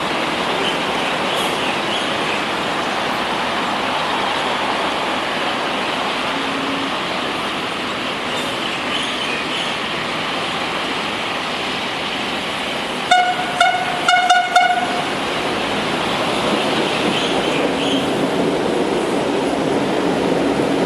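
SMRT C151A electric MRT train running into the station with steady rolling noise. About 13 seconds in, its horn sounds a quick run of short toots lasting about two seconds.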